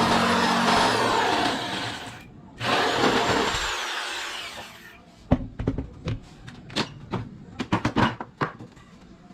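Total 750 W reciprocating saw running, its motor whine falling as it winds down about two seconds in; it is triggered again briefly and winds down once more. This is followed by a string of sharp knocks and clatter.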